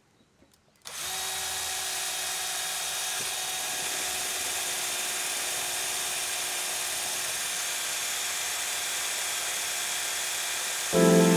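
Power drill running steadily with a small hole saw, cutting a hole through the side of a white PVC cap; the drilling starts about a second in. Music comes in just before the end.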